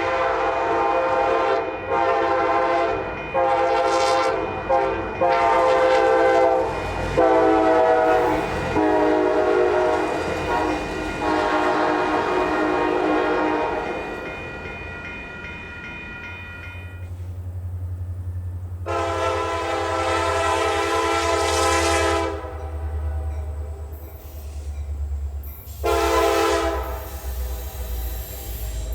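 Nathan K5LA five-chime locomotive air horn sounding about seven blasts of varying length, then, after a pause, a longer blast and one more. A low rumble from the passing locomotive sits beneath the later blasts.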